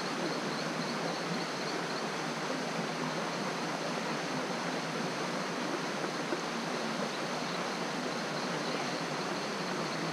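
River water running over a small rocky cascade into a pool, a steady rushing noise.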